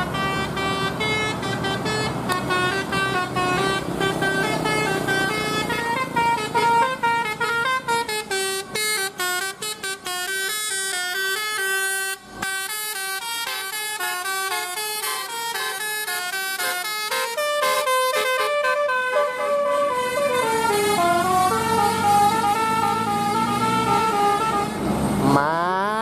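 Indonesian tour bus 'telolet' horn, a multi-trumpet Basuri horn, playing melodic tunes of several notes at once that step quickly from pitch to pitch, with a fast run of short notes about eight to eleven seconds in and a brief break about twelve seconds in.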